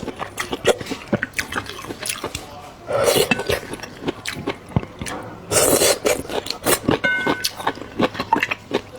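Close-up eating sounds: chewing and mouth clicks throughout, with two longer noisy slurps of rice noodles and broth about three and six seconds in.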